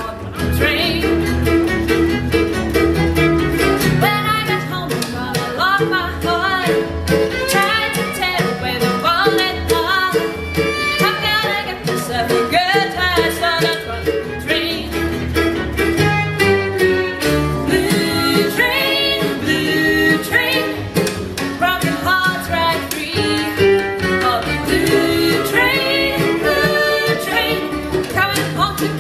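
A bluegrass band playing live: fiddle carrying the melody over strummed acoustic guitar, mandolin and upright bass.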